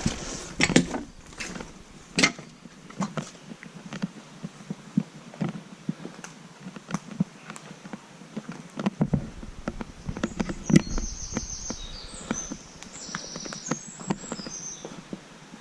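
Irregular footsteps scuffing and crunching over rubble and debris, with a brief high chirping about ten seconds in.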